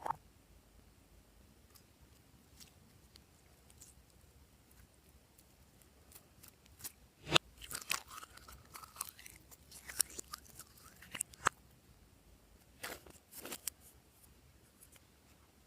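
Glossy slime being worked by hand, making sticky clicks and crackles with a few short squeaks. The first six seconds are quiet; the clicks come thickest between about seven and twelve seconds in, with a short burst again around thirteen seconds.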